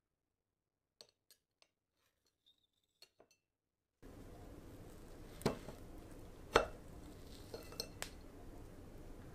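Metal fork clinking against a ceramic plate as it cuts through a slice of no-bake cheesecake: two sharp clinks about a second apart, then a few lighter taps. Before that, a few faint clicks over near silence.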